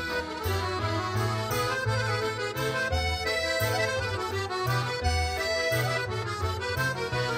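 Music with a steady beat: pitched melody over a bass pulse about twice a second.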